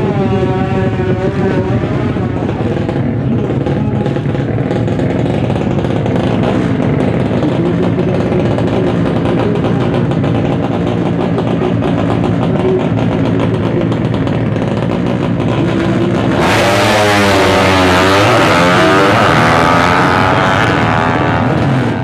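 Racing motorcycle engines running loudly. About three-quarters of the way through, one engine is revved harder, its pitch sweeping up and down with repeated throttle blips.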